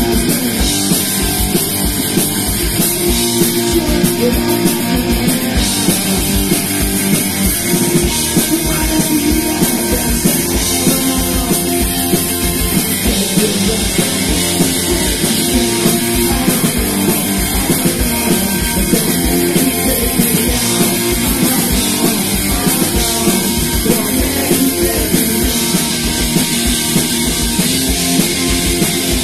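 Punk rock band playing live and loud: electric guitar, bass guitar and drum kit driving a steady beat.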